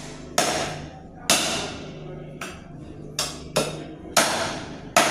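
Goat meat being chopped with a blade on a chopping board: about seven hard, uneven chops, each striking the board sharply.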